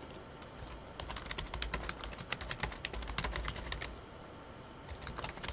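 Computer keyboard typing: a quick run of keystrokes starting about a second in, a brief pause near four seconds, then typing again near the end.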